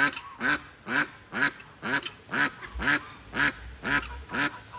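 A female duck quacking loudly and repeatedly at an even pace, about two quacks a second. The keeper takes this as the duck yelling at her sister to come back, a call to a flockmate that has moved away.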